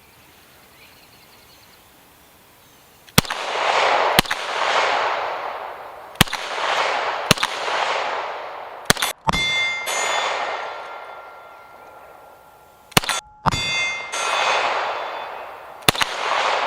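Beretta APX A1 9mm pistol firing single shots at irregular intervals, about nine in all, starting about three seconds in, each shot followed by a long fading echo. Thin ringing tones after some shots are steel targets being hit at 25 yards.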